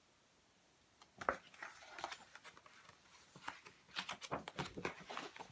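Pages of a large picture book being turned and the book handled: a run of uneven paper rustles and soft knocks that begins about a second in.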